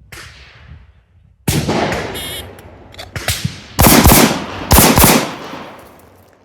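Several gunshots from a handgun and carbine over about four seconds, the loudest ones close together around four and five seconds in, each trailing off in echo.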